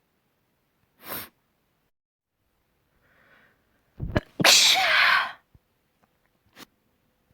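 A person sneezing once, loudly, about four seconds in: a sharp catch, then a long, spraying burst, set off by dust. A short sniff comes about a second in.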